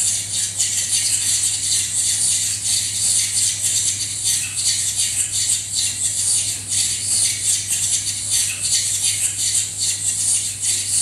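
A dense, high-pitched rattling, shaker-like noise texture from an electroacoustic score, with many fine irregular strikes, over a steady low hum.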